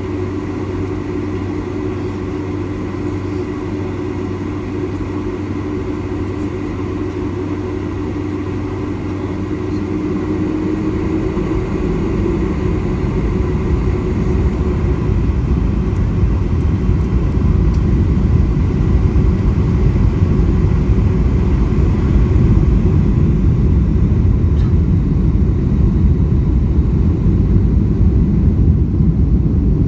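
Jet cabin noise inside a Boeing 747-400, its Pratt & Whitney PW4056 turbofan engines first running with a steady hum. From about ten seconds in, the engines build into a louder, deep rumble as thrust comes up for takeoff.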